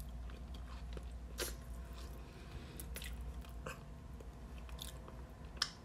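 Quiet chewing of a seafood-boil potato, with scattered short wet mouth clicks and smacks over a faint steady low hum.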